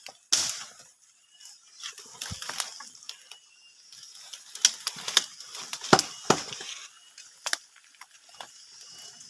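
Irregular sharp knocks and snaps, about a dozen, loudest a little past the middle; the chainsaw is not running.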